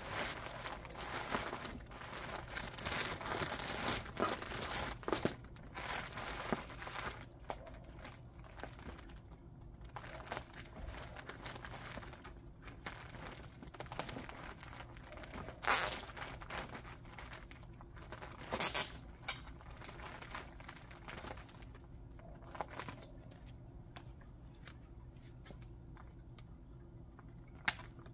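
Crinkling and rustling of sheet material being handled during work on a stove flue pipe. Scattered clicks run through it, with a couple of louder, sharper scrapes a little past the halfway point, and the handling grows quieter near the end.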